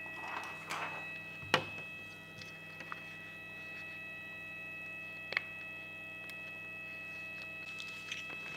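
Soft rustling of vinyl and backing sheets being peeled and handled, with two sharp knocks, the louder about one and a half seconds in and a smaller one a few seconds later. A steady electrical hum with a high whine runs underneath.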